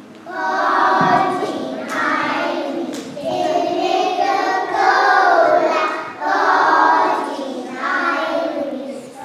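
A group of young children singing together in phrases, with short breaks between them.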